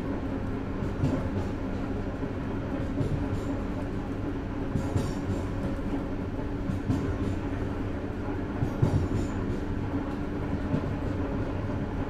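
Train wheels running on the rails, heard from inside a carriage vestibule: a steady low rumble with scattered knocks and rattles, the sharpest about three-quarters of the way through.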